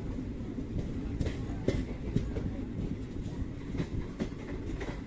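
Passenger train running, heard from its open doorway: a steady low rumble of wheels on rail with short sharp clicks about every half second as the wheels pass over the track.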